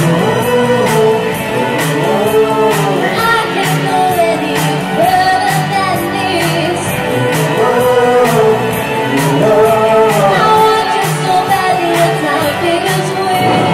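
Pop music playing loud, with a steady beat and a singing voice carrying a gliding melody without clear words.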